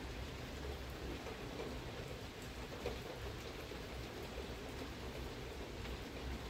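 Steady rain pattering outdoors, an even hiss with a low rumble beneath it and a few faint ticks of drops.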